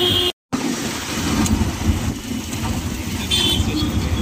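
Steady vehicle and road noise, with a brief high tone about three seconds in.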